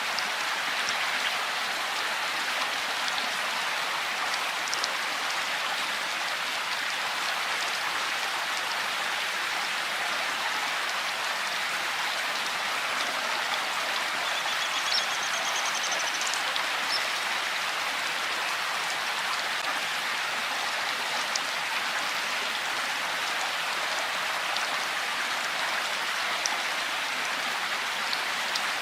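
Steady rainfall: an even, continuous hiss of rain with scattered sharper ticks of individual drops.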